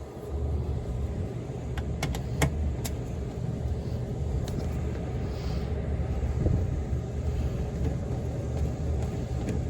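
A 90% Amana gas furnace running with a steady low hum, with a few light clicks about two seconds in. The furnace runs constantly without lighting a flame and shows three flashes, which the technician is pretty sure is a pressure switch fault.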